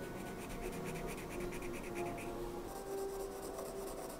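Graphite pencil scratching on drawing paper in quick repeated shading strokes, over soft background music with a few held notes.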